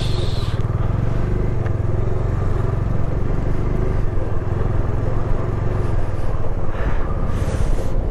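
Bajaj Dominar 250 motorcycle's single-cylinder engine running steadily while being ridden, with road noise.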